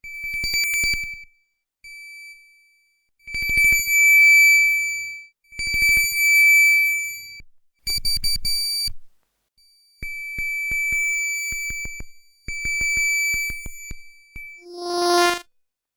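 A series of high electronic beeping tones, each lasting up to about two seconds and set off by fast clicking pulses, followed near the end by a lower, buzzy horn-like tone.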